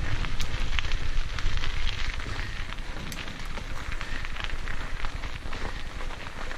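Mountain bike tyres rolling fast over a loose gravel trail: a continuous crackling crunch with scattered ticks of flicked stones and two sharper clicks, over a low wind rumble on the microphone.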